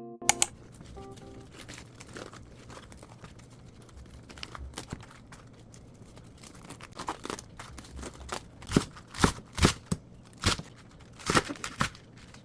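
Kitchen food-preparation sounds: rustling and crinkling, then from about seven seconds in a run of sharp knocks and crunches, the loudest near the end.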